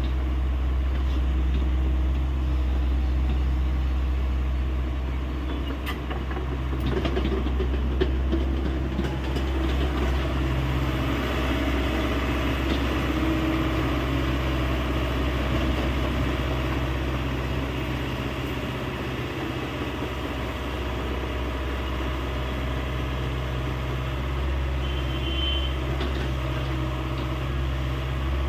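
Hyundai 85A excavator's diesel engine running steadily as it works, with a few sharp knocks between about six and nine seconds in.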